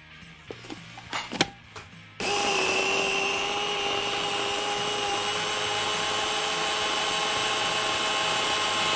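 After a few light clicks, an electric food processor's chopper bowl switches on about two seconds in and runs at a steady whine, grinding whole-wheat biscuit crumbs together with soft butter. It shuts off at the very end.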